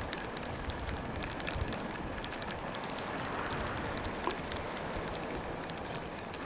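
Steady wind and water noise at the shoreline, with a few faint scattered clicks.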